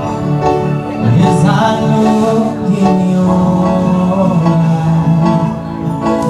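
Live reggae band playing, a man singing into a microphone over long held keyboard chords.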